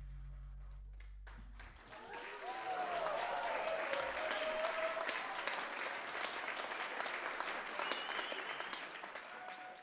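A low held chord from the band fades out over the first couple of seconds. Then the concert audience breaks into applause, with voices cheering in it and a high whistle near the end.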